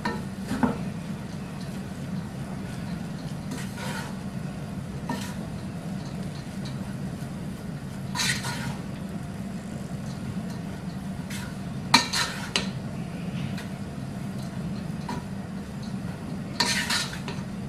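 A flat spatula stirring and turning cooked rice in a non-stick pot, with short scrapes against the pan every few seconds over a steady low hum.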